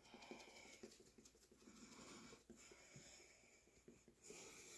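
Near silence: room tone with faint soft rustles and a short faint hiss near the end.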